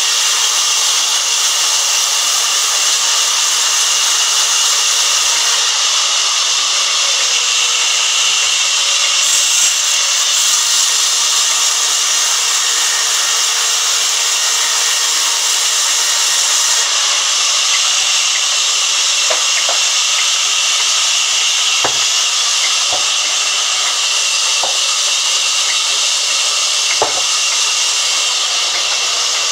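A sawmill saw cutting through a thick wooden slab that is being fed by hand. It makes a steady, loud hiss, with a few faint ticks and knocks in the later part.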